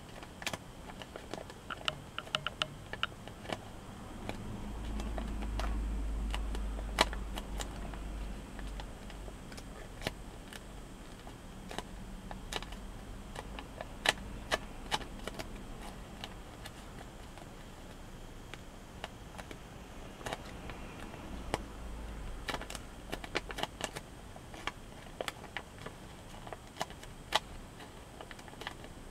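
Origami paper being folded and creased by hand: scattered crisp clicks and crinkles as the paper is pressed and turned, with a low rumble twice.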